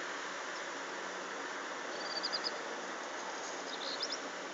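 A small bird chirping twice, each time a quick run of three or four high notes, about two seconds in and again near the end, over a steady background hiss.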